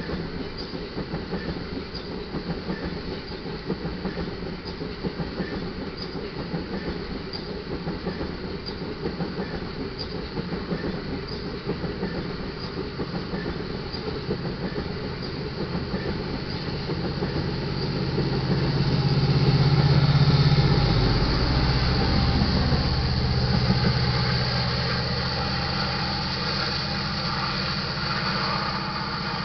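Loaded iron ore hopper cars rolling by with wheel clatter and a grade crossing bell ringing steadily. Past the middle, a louder low engine drone swells and fades as the rear distributed-power locomotive, an EMD SD70ACe with a two-stroke diesel, passes.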